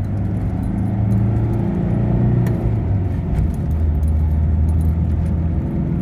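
Car engine with a manual gearbox running under load at about 2,000 rpm, heard from inside the cabin, its power restored after a vacuum part was replaced. Around the middle its note breaks off and settles lower, with a couple of faint clicks, as the car is shifted up a gear.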